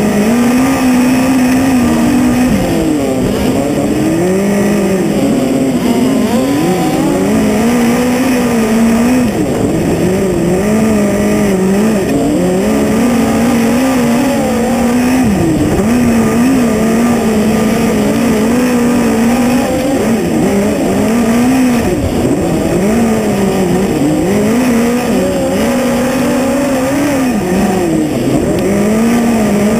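A midget race car's engine, heard loud from an onboard camera on the car, runs hard lap after lap. Its pitch drops and climbs again every three to four seconds as the driver lifts and gets back on the throttle for each turn of the short dirt oval.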